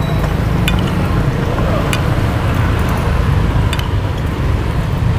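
A metal spoon clicks sharply against a plate three times over a steady low rumble.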